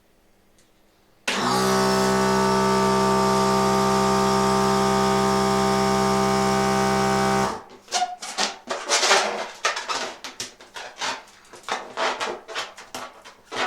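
Electric balloon inflator running steadily for about six seconds as it fills a latex balloon, starting and cutting off abruptly. It is followed by quick rubbery squeaks and rustles of the balloon being handled.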